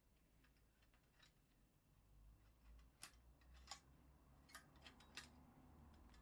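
Faint small metallic clicks and taps from the brass fuel-valve and generator parts of a Coleman 508A gasoline stove being handled as the L-shaped piece with its stainless wire is worked loose. The clicks come singly and irregularly, with a sharper one about three seconds in and a cluster around five seconds, over a low handling rumble.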